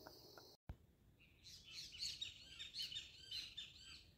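Morning bird chorus: many small birds chirping in quick, overlapping calls, starting about a second in. Before that, a steady cricket trill cuts off abruptly.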